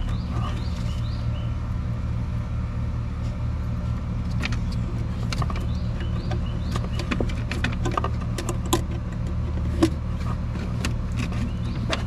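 Wires and plastic connectors being handled and pushed onto an HVAC control board: scattered small clicks and rustles, several close together in the second half, over a steady low machine hum.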